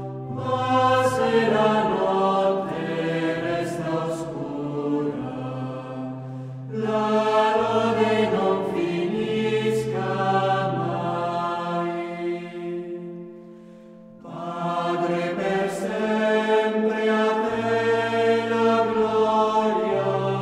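Background music: slow choral chant with long held notes over a steady low tone. It fades out a little past halfway, and a new phrase begins about 14 seconds in.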